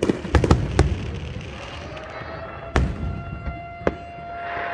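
Aerial fireworks shells bursting: a quick run of booming bangs in the first second, then two single bangs about three and four seconds in. From about two seconds in, a siren winds up into a steady held tone under the bangs.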